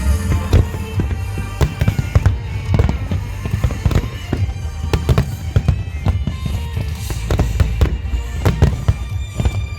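Fireworks bursting in quick succession, with many sharp bangs, over music playing along with the show.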